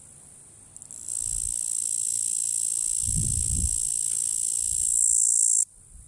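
A cicada singing: a few ticks about a second in, then a steady high-pitched buzz that grows slightly louder and cuts off suddenly near the end.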